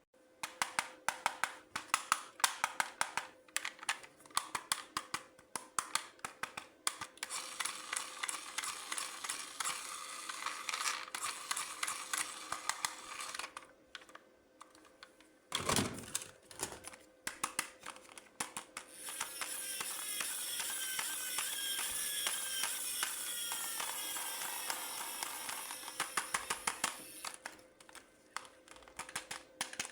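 Toy packaging being handled: rapid irregular clicks and crinkling of plastic, in two longer dense stretches, with a brief falling sweep about halfway through.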